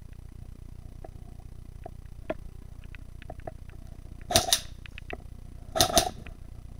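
Airsoft gun firing, two quick pairs of sharp cracks about a second and a half apart, with a few faint clicks and ticks before them.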